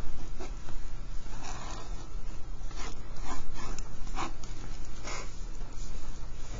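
Pen scratching on paper in a series of short strokes, over a steady low hum.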